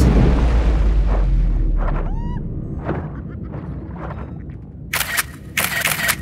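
Designed sound effects for an underwater scene: a deep boom that rumbles and fades over about three seconds, then soft swells, a short squeaky chirp about two seconds in, and two loud hissy bursts near the end.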